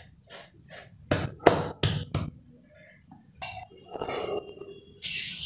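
Hands patting and pressing a warm sesame-jaggery mixture on a wooden rolling board: a run of short slaps and knocks, with a brief hissing rustle near the end.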